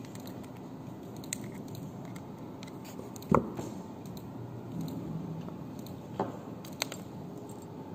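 Small metal parts of a tubular knobset clicking and tapping as they are handled and taken apart with a screwdriver. One sharp click about three and a half seconds in is the loudest, with a few lighter clicks around it.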